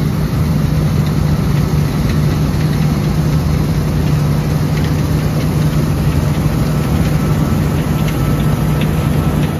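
Diesel engine of harvest machinery running at a steady speed, an even mechanical hum with no change in pitch.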